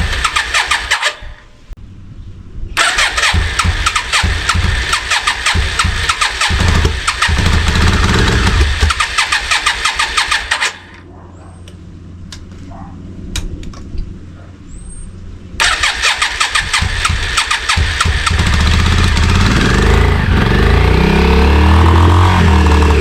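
Yamaha Virago 535's air-cooled V-twin being cranked on the electric starter in three attempts with short pauses between them. The engine catches about three-quarters of the way in and runs steadily, growing louder. This is the first start after its carburettors were cleaned.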